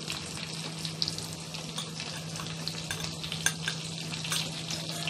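Hot oil sizzling and crackling steadily around boiled eggs frying in a kadai, with red chilli masala powder just added on top; a steady low hum runs underneath.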